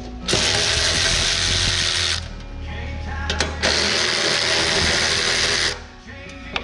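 Cordless power ratchet running in two bursts of about two seconds each, turning bolts on the frame of a Kubota tractor broom attachment.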